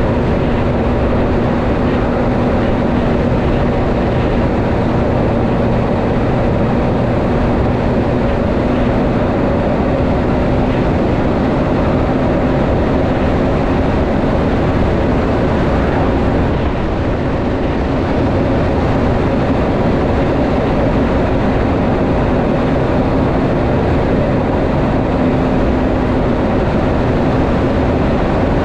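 Heavy semi-trailer truck driving along at a steady speed: its diesel engine drones at an even pitch over steady road and tyre noise, with a brief dip in level about halfway through.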